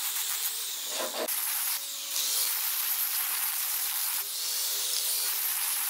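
Angle grinder with a sanding disc running against hardwood: a steady abrasive hiss over the motor's whine as it sands the curved edge, with a short dip about two seconds in.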